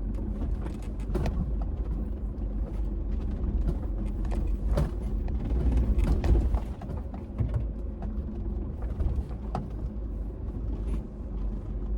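Toyota Fortuner crawling in low range over a rough 4x4 track: a steady low rumble of engine and tyres with scattered knocks, creaks and rattles from the body and suspension, heaviest about halfway through.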